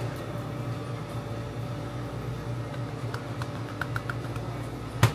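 Light clicks and taps of fried chicken wings being set on a wire rack in a stainless steel tray, then one sharp knock near the end, over a steady low hum.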